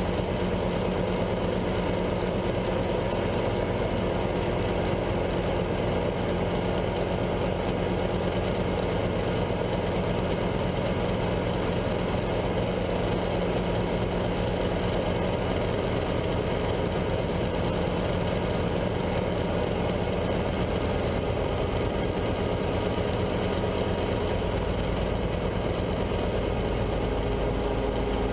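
Cabin noise of a Guimbal Cabri G2 helicopter in flight: its four-cylinder Lycoming piston engine and rotors running steadily, with a fast low beat, heard from inside the cockpit during the approach to a low hover over grass. The low hum shifts in pitch about three-quarters of the way through.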